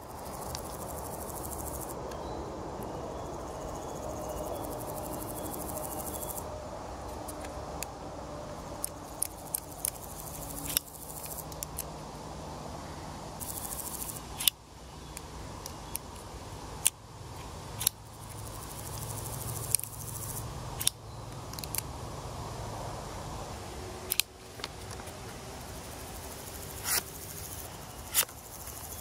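A folding knife with a crossbar lock being opened and closed by hand: sharp, short metallic clicks as the blade snaps into place and the lock bar springs, more than a dozen at irregular intervals over steady outdoor background noise.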